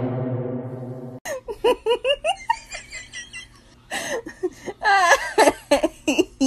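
High-pitched giggling and laughter in quick bursts, after a low droning sound that fades and cuts off about a second in.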